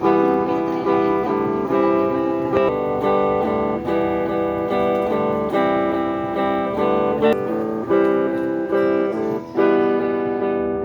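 Instrumental acoustic guitar music, strummed chords changing every second or so, with no singing.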